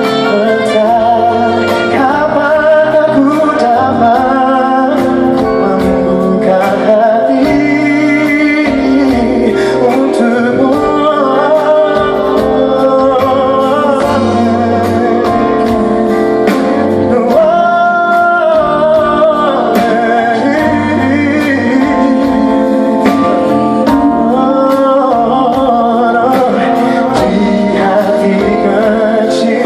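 Live band playing a pop ballad with singing over it and a steady drum beat.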